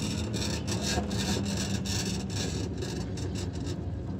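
Vintage tram running along its tracks: the steady rolling noise of steel wheels on the rails over a low, steady motor hum.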